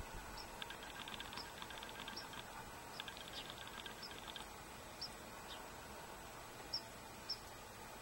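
Small songbirds at a seed feeder giving short, high chip notes every half-second or so, with a few brief bursts of rapid ticking in the first half; two chips near the end are the loudest.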